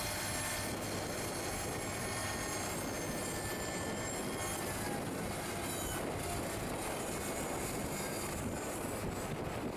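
Tractor-drawn CrustBuster 60-foot central fill drill working through a field: steady engine and machinery noise, with faint high whines above it and a brief falling whine about halfway through.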